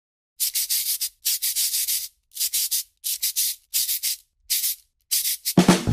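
Pencil scratching on paper in runs of quick strokes, with short pauses between the runs. Music comes in just before the end.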